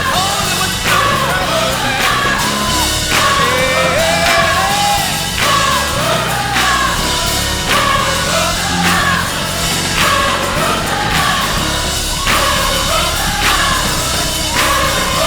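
Gospel choir singing with a full band accompaniment over a steady beat, the voices sliding through long, ornamented melodic lines.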